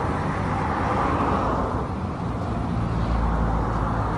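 Road traffic going by: a steady rush of passing cars, with a deeper rumble building about three seconds in.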